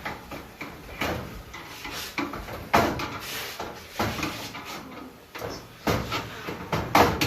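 Knocks and clatter of dryer parts being handled during a repair, with two louder bangs, about three seconds in and near the end.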